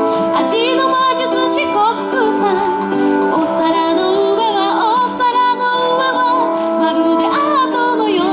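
A song with a female singer over instrumental backing.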